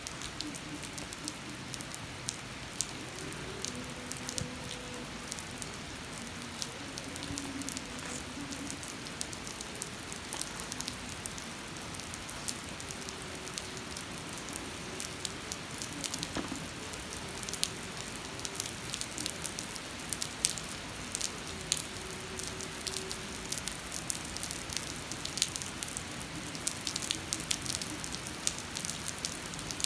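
Steady rain falling on wet, puddled pavement: a constant hiss with many sharp drop ticks scattered through it.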